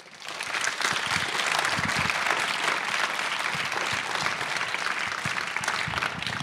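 Audience applauding, many hands clapping together; it swells up over the first second and then holds steady.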